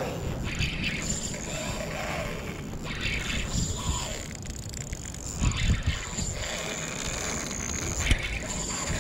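Fishing reel being cranked while fighting a hooked salmon, a steady mechanical whirring and scraping mixed with clothing rubbing near the microphone, with a few knocks about five and a half and eight seconds in.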